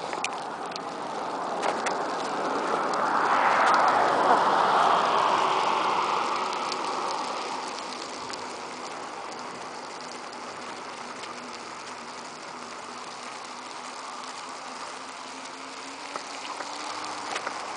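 Steady rushing noise of wheels rolling on asphalt, with wind on the microphone, while being pulled along behind a running dog. It swells to its loudest about four seconds in, then eases off to a lower steady level.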